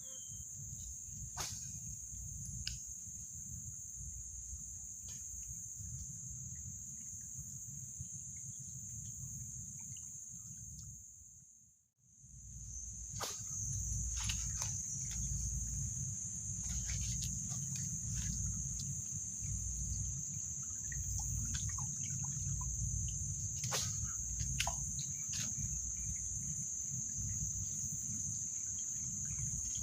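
Insects in the forest chirring steadily at one high pitch, over a low rumble with scattered clicks and rustles. The sound fades out briefly near the middle and comes back.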